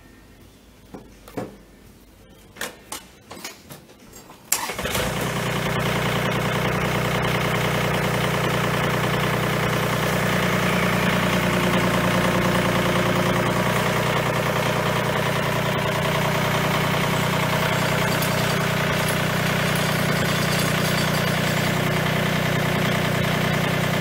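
A few clicks and knocks, then about four and a half seconds in the John Deere 2032R's three-cylinder diesel engine starts and runs steadily as the tractor is driven forward off its mower deck.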